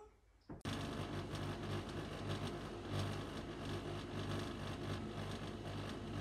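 Steady whirring noise with a low electrical hum, starting abruptly about half a second in.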